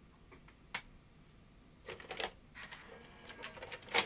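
A VHS cassette being pushed into a JVC HR-S8600EK S-VHS recorder and drawn in by its loading mechanism: a sharp click about a second in, a clatter of clicks around two seconds, scattered ticks, then a sharp click near the end.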